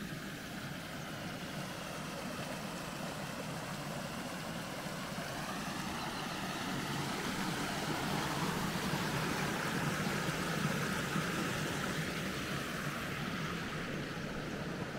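A distant engine running over a steady hiss, swelling slowly to its loudest a little past the middle and easing off near the end.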